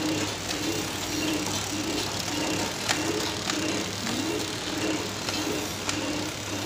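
Automatic corn-snack packing line running, with its feed conveyor and flow-wrapping machine: a steady hum with a pulse repeating about twice a second, and a few sharp clicks.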